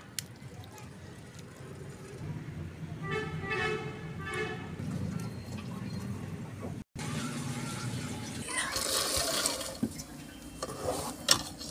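Water pouring and splashing from a steel bowl into a cooking pot, with clinks of metal utensils near the end. Earlier, a drawn-out pitched tone sounds in the background for about a second and a half.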